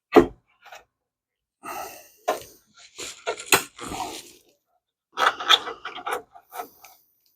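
A sharp knock, then two runs of scraping and clattering as parts of an old car dashboard are handled and worked loose during teardown.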